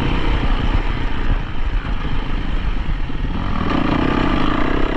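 Dirt bike engine running over a heavy low rumble, its pitched engine note growing stronger and steadier near the end.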